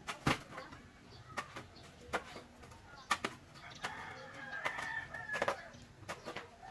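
A rooster crowing once, drawn out, starting about four seconds in. Sharp clicks or knocks come at irregular intervals throughout and are the loudest sounds, the strongest near the start and about three seconds in.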